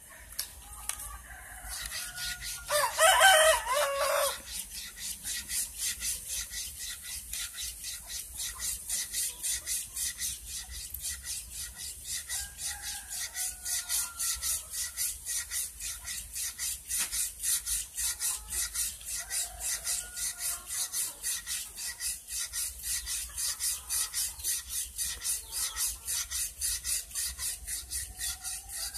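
A steel blade sharpened by hand on a whetstone: steady back-and-forth rubbing strokes, about three a second. A rooster crows loudly a few seconds in, and fowl call faintly later.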